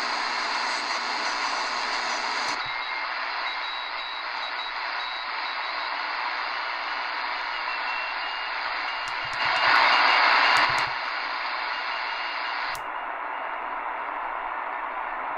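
Shortwave static hiss from the Eton Grundig G5's speaker while it is tuned around 7 MHz on the 40-meter ham band and switched from AM to single sideband, with faint steady whistles from carriers. The hiss turns duller suddenly about two and a half seconds in and again near the end. About ten seconds in comes a louder rush of noise with a few sharp clicks.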